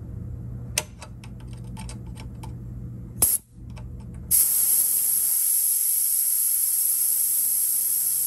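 A few metal clicks as a multitool is pressed against the brass valve on a 2013 Tesla Model S air suspension line, then, about four seconds in, compressed air starts hissing out steadily as the line's pressure is bled off.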